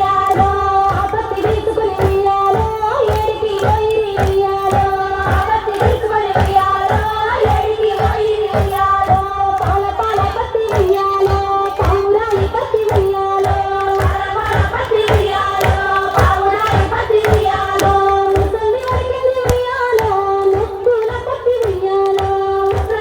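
A Bathukamma folk song sung by high, female-range voices over a steady rhythmic beat.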